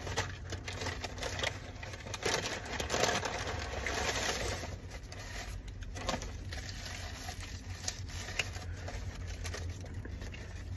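Brown paper fast-food bag rustling as a hand rummages in it, then the paper wrapper of a chicken sandwich crinkling as it is pulled out and unwrapped. The rustling is loudest about two to four seconds in.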